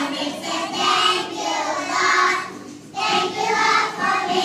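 A group of young children singing together in unison, with a short break about two and a half seconds in before the voices come back.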